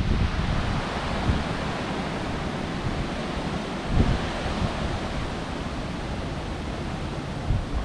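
Strong gusting wind blowing across the microphone: a steady rushing noise with low rumbling buffets, the strongest about four seconds in. Surf washes underneath.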